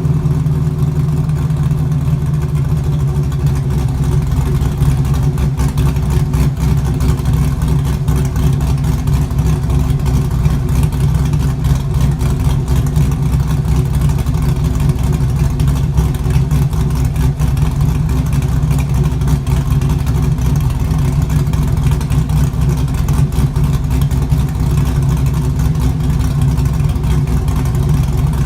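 LS1 5.7-litre V8 idling steadily through an exhaust with no rear mufflers or rear section fitted, a deep, even low-pitched exhaust note with no revving.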